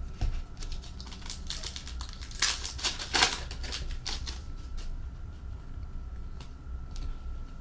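Hockey card packs and cards being handled: a run of crisp clicks and rustles of card stock and foil wrappers, busiest about two and a half to three and a half seconds in, over a low steady room hum.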